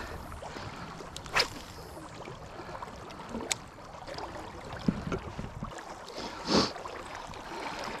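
Steady wash of shallow river water with wind on the microphone, broken by a few short ticks and a brief swish as a spinning rod is cast and its reel worked.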